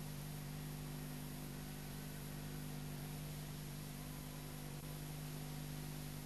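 Steady hiss with a low electrical hum and nothing else: the background noise of a silent film's soundtrack played from a deteriorated VHS tape.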